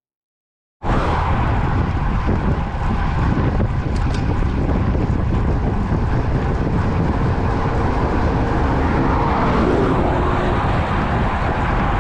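Wind rushing over a bike-mounted camera's microphone while riding a road bike at speed, with tyre noise from the road. The steady loud rush, heaviest in the low end, cuts in suddenly about a second in.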